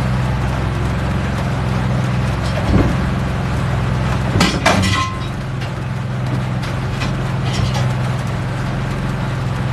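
Portable generator engine running at a steady speed, with a few sharp knocks and clinks about three and five seconds in.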